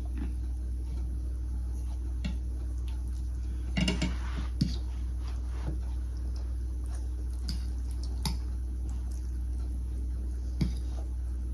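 Fork and spoon clinking and scraping against a plate of chow mein, with eating noises, over a steady low hum. The loudest run of clinks comes about four seconds in, with single ones later on.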